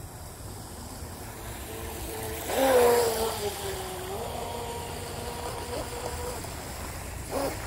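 Electric motor whine of a small brushless RC speedboat running at speed across the water. The tone swells with a rush of spray about two and a half seconds in, then drops in pitch and fades as the 3S 2200 mAh LiPo pack runs flat.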